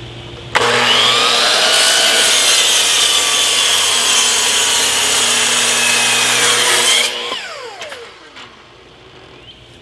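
Electric miter saw cutting wood: the motor spins up with a rising whine, the blade runs through the board for several seconds, then the trigger is released and the blade winds down with a falling whine.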